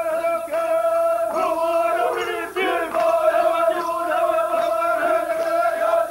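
Kayapo men chanting in unison during a traditional dance. They hold one steady note with rhythmic pulses, breaking off briefly about two and a half seconds in.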